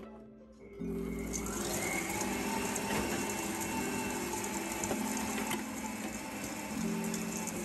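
A 1000 W stand mixer starts about a second in and runs steadily, its beater churning half-frozen ground pork and ice cubes in a stainless steel bowl, with a faint motor whine over the churning noise.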